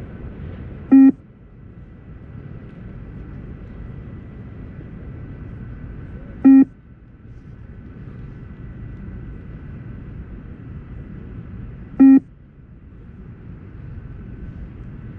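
Beep test (20 m multistage shuttle run) recording sounding its short electronic shuttle beep three times, about every five and a half seconds, each beep marking the end of one 20 m shuttle. A steady background noise runs beneath.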